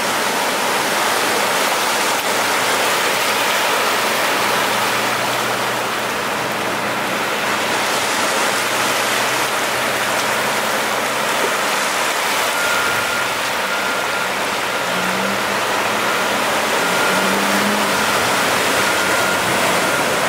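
Steady rushing of floodwater flowing across a flooded street. Faint, evenly repeated beeping joins about twelve seconds in.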